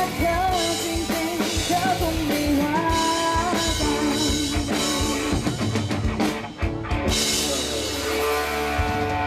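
Live rock band playing a song: a singer's voice over drum kit and guitar, with a short drop about six and a half seconds in followed by long held chords.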